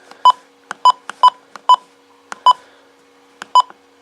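Uniden Bearcat BC75XLT handheld scanner's key beep, sounding as its keypad buttons are pressed one after another in keypad test mode. There are six short, identical high beeps at uneven spacing, each led by a faint button click.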